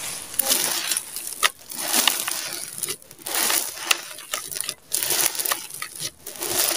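Handfuls of gritty red sand crumbled and dropped by hand into a plastic tub, each pour a hissing, crunchy patter, in repeated bursts with short breaks between them.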